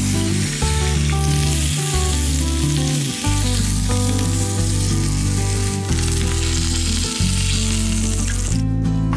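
Pork knuckle sizzling in hot fat in a frying pan as it browns, a dense steady hiss that stops near the end. Background music plays underneath.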